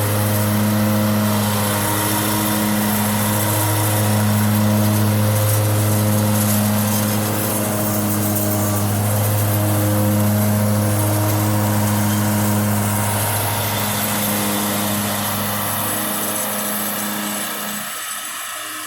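Zero-turn riding mower's engine running steadily as it mows, growing fainter over the last couple of seconds.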